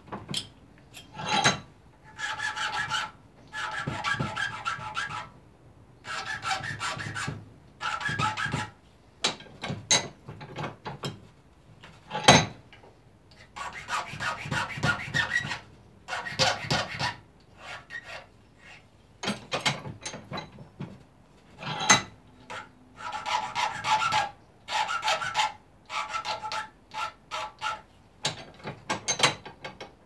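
Hand file worked back and forth on a piece clamped in a bench vise: runs of quick rasping strokes lasting a second or two with short pauses between, some runs carrying a thin ringing tone. Now and then a sharp click, the loudest about twelve seconds in.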